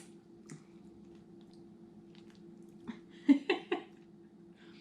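Wet mouth sounds of someone licking and chewing a hard toffee, with a few faint small clicks, then a brief vocal sound in three quick pulses about three and a half seconds in, over a steady low hum.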